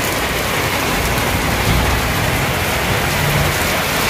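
Steady rain falling on hard surfaces, a loud, even hiss.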